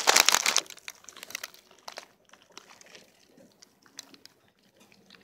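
Handling noise from a handheld phone's microphone: a short, loud burst of rubbing and scraping against skin or cloth in the first moments, then only faint scattered clicks and rustles.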